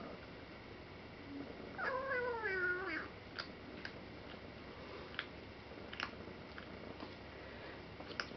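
A cat's wavering meow about two seconds in, lasting about a second and sliding down in pitch at the end, the loudest sound here; around it, a Burmilla kitten crunching dry kibble, with several sharp crunches.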